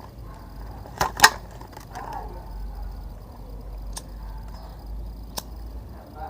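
A few sharp clicks or snaps over a low steady rumble. The loudest are two close together about a second in, then single ones about four and five seconds in.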